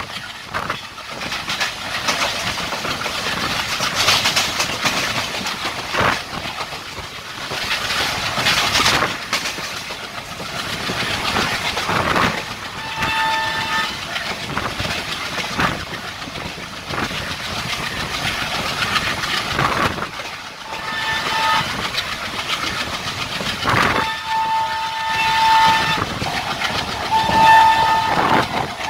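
Passenger train running at speed, heard from an open coach doorway: rushing air and wheels clattering over the rails. The locomotive's horn sounds in several blasts from about halfway through, with the longest near the end.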